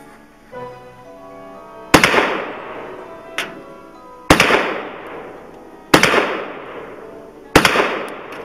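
Four rifle shots fired in quick succession, roughly one every two seconds, each a sharp crack with a trail that dies away, and a fainter sharp sound between the first two. Background music plays underneath.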